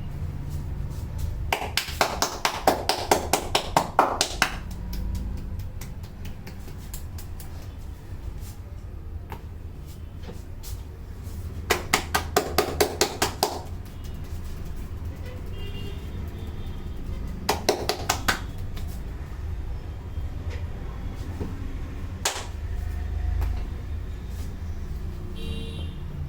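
Rapid percussive hand tapping of a head massage, the barber's hands striking the head about six times a second in three quick runs, with a single sharp click later. A low steady rumble runs underneath.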